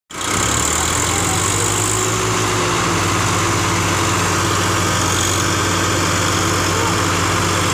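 Diesel engines of two tractors, a Preet 6049 and a Swaraj 855, running steadily under heavy load as they pull against each other, chained back to back in a tug-of-war.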